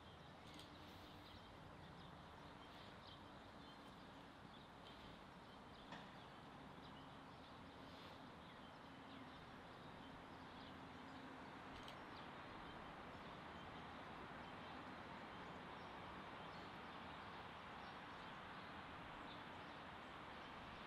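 Near silence: faint bush ambience with a few soft bird chirps, and the distant R class steam locomotive barely heard working as it approaches, growing slowly louder.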